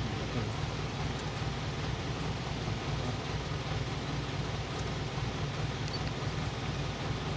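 Manlifter truck's engine idling steadily, a low even hum.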